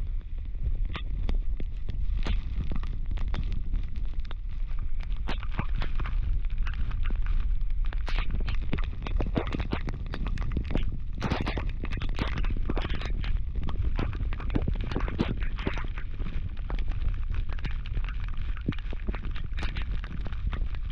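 Strong squall wind buffeting the microphone in a constant low rumble, with many sharp crackles and pops throughout.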